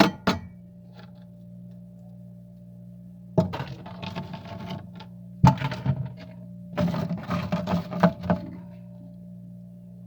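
Freezer frost crunching in four bursts of crisp noise, the longest near the end, over a steady low hum.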